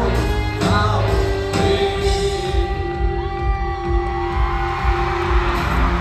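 Rock band playing live through the venue's PA, heard from the audience: singing over a steady beat, with a long held note from about a second and a half in.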